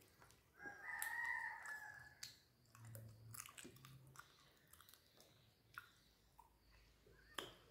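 Quiet wet sounds of eating rice with the fingers: small clicks and squishes of food being mashed and chewed. Just under a second in, a rooster crows once, for about a second and a half.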